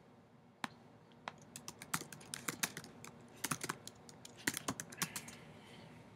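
Typing on a computer keyboard: runs of quick, irregular key clicks with short pauses between them.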